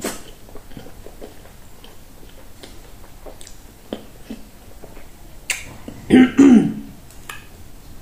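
Close-up mouth sounds of a person eating fufu and okra soup by hand: scattered soft wet smacks and clicks of lips and tongue while swallowing. About six seconds in comes the loudest sound, a short throaty vocal noise from the eater.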